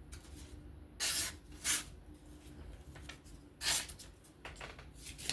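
A knife's freshly freehand-sharpened edge making three brief hissing strokes as it is checked.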